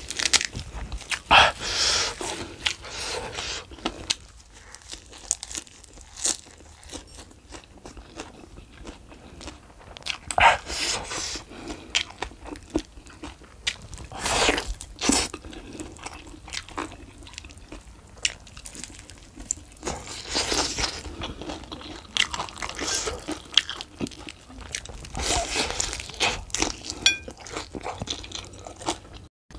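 A person biting and chewing fried chicken and raw lettuce, with loud bursts of crunching every few seconds between quieter, wetter chewing.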